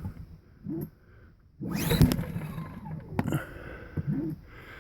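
Recoil pull-starter of a Powerhorse inverter generator being yanked on a cold start with the choke on: a whirring spin-up of the small engine about a second and a half in, with shorter rattles between pulls, the engine cranking without catching.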